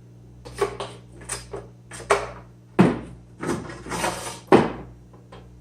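A mirror being slid into a tray of a kief sifter box: a series of knocks and scrapes, the two loudest sharp knocks about three and four and a half seconds in.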